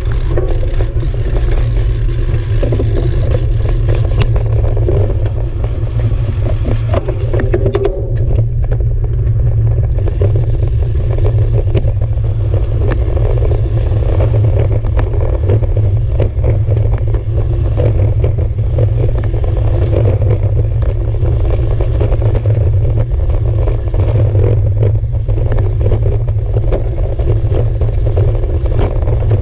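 Bicycle riding over stone paving: a continuous rattle of tyres and frame on the stones, under a steady heavy wind rumble on the handlebar-mounted microphone.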